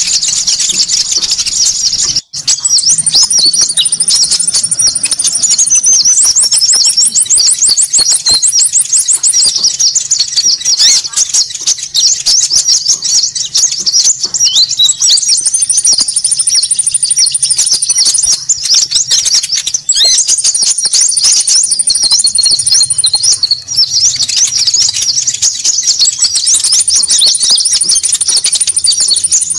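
Bird-lure recording of small songbirds calling noisily and without a break: a dense, high jumble of chattering chirps. Over it, a thin, very high trill comes in every few seconds, with a fast ticking rattle about seven seconds in.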